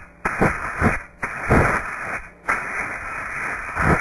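Compressed air blown at a ring and its latch in three hissing blasts, the last the longest.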